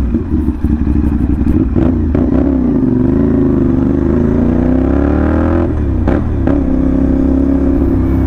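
CFMoto 450NK parallel-twin engine through a short, loud aftermarket slip-on exhaust, running with a hard, deep note. The revs climb steadily for a couple of seconds from about a third of the way in, then drop sharply, and the engine settles back to a steady pull.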